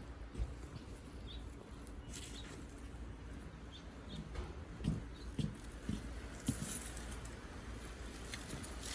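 Hands digging through wet soil in a potato container: rustling and scraping with a few soft thuds, most of them between about four and seven seconds in.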